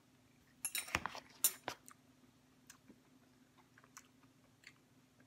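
A person chewing a forkful of ginger beet sauerkraut: a quick cluster of crunches in the first two seconds, then faint scattered clicks of slower chewing.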